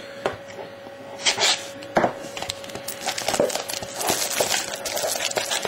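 Trading-card pack wrapper crinkling and tearing as a pack is opened and the cards are handled, with scattered sharp crackles that grow busier after the first few seconds.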